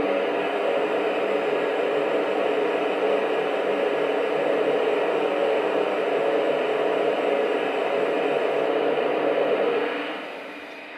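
Steady steam hiss played through the onboard speaker of a Lionel Vision Line Big Boy model steam locomotive standing still, fading out near the end.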